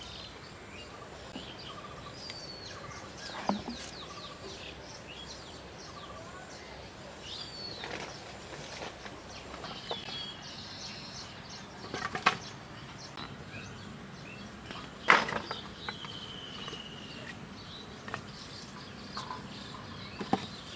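Birds chirping on and off over a steady high-pitched insect buzz, with a few sharp knocks, the loudest about fifteen seconds in.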